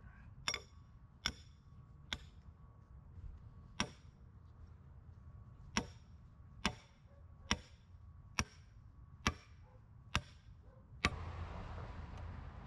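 Short sledgehammer striking a steel form stake, driving it in beside a concrete form board: about eleven sharp, ringing metal-on-metal blows, roughly one a second. Near the end a steady rushing noise starts.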